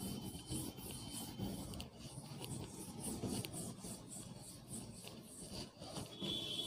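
A board duster rubbing chalk off a chalkboard in quick back-and-forth strokes, about three a second.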